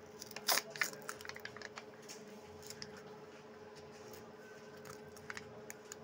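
Peel-off lid being pulled from a plastic Kinder Creamy egg cup: crinkling and crackling of the thin film, sharpest about half a second in, then scattered small crackles. A steady faint hum runs underneath.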